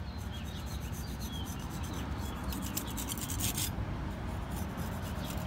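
A flat hand tool scraping excess patching mortar off a fresh cast stone repair. It makes a run of rough strokes, busiest about halfway through.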